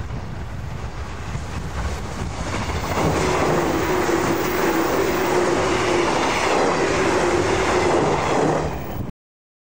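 A 485-series electric limited express train approaching with a low rumble, then passing close by from about three seconds in: a loud rush of wheels on rail with a steady hum running under it. The sound cuts off abruptly near the end.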